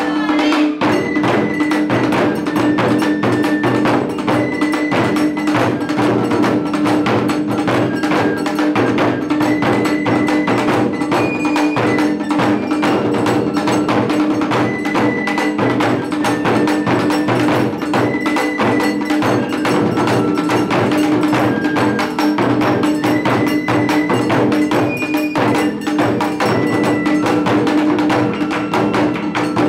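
Japanese taiko ensemble drumming: large tacked barrel drums and small tight-headed drums struck in fast, continuous patterns. A high melody of held notes sounds above the drums.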